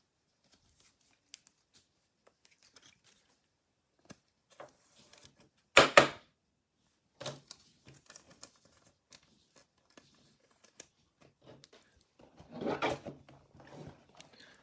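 Trading-card box and pack packaging being handled and opened: scattered rustles and clicks, with a loud short rip about six seconds in and another burst of rustling near the end.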